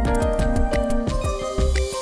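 Background music with a steady beat and sustained pitched notes.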